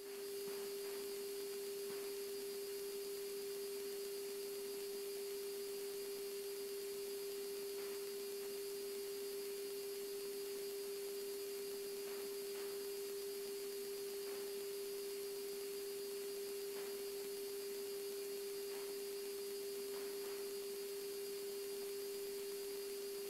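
A steady electronic tone at one unchanging pitch, like a pure sine tone, in the cockpit radio audio feed, over a faint hiss.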